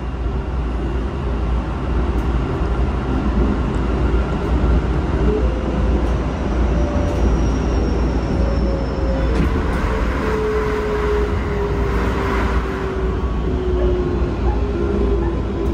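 Interior running sound of a Keikyu 1000 series electric train with Toshiba IGBT-VVVF traction equipment: a deep rumble of wheels on rail, with the motor and inverter tone gliding slowly down in pitch over the second half as the train slows.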